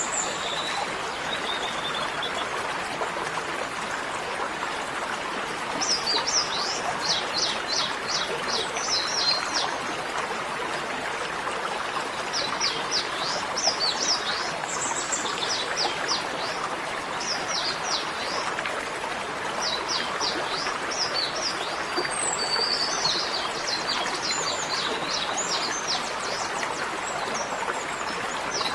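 Birds chirping in repeated quick runs of short, high, falling notes over a steady rushing noise.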